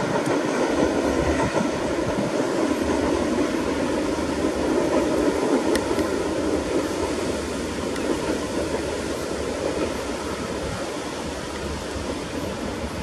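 Freight train's container wagons rolling past on the rails, a steady rumble that slowly fades toward the end, with one sharp click about six seconds in.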